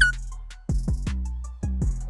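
Hip hop beat: deep drum-machine bass drum hits with long low tails, sharp high ticks in between, and a short high tone at the very start.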